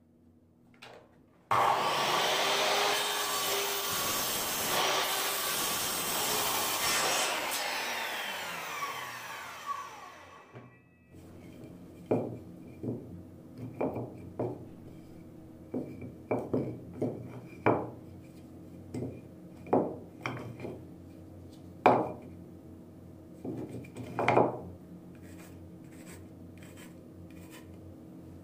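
Metabo sliding mitre saw starting suddenly, cutting through a wooden strip, and its blade spinning down over several seconds. This is followed by a run of short wooden knocks as the cut blocks are set down on the bench.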